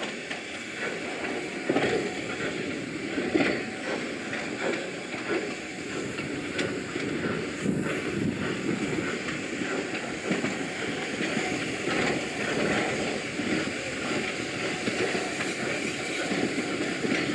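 Lancashire & Yorkshire Railway Class 27 0-6-0 steam locomotive running slowly in along the platform with its train, with irregular knocks and clicks from the wheels and motion over the rails and some steam hiss.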